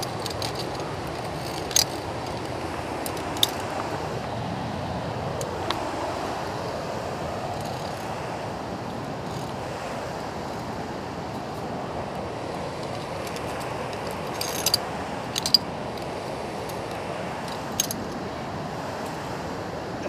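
Via ferrata carabiners and lanyard clinking against steel rungs and the steel cable: a handful of short, sharp metallic clicks scattered through, the loudest about fifteen seconds in. Under them runs a steady rushing from the nearby waterfall.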